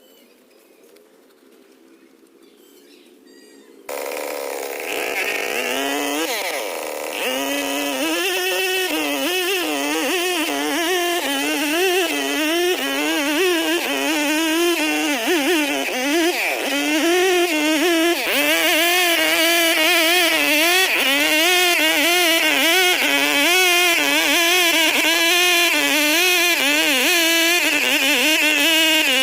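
Stihl 070 two-stroke chainsaw engine coming in suddenly about four seconds in, rising in pitch, then running loud with its pitch repeatedly wavering up and down.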